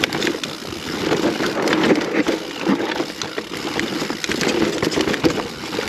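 Mountain bike riding down a rough, rooty trail: a steady rumble of tyres on dirt with dense, irregular clicks and rattles from the bike over roots and rocks.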